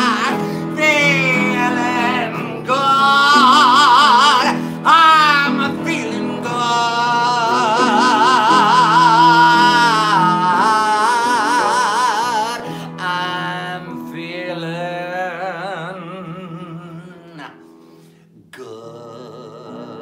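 A singer belting long held notes with wide vibrato over acoustic guitar and upright piano. The voice drops out near the end, leaving the piano and guitar playing softly.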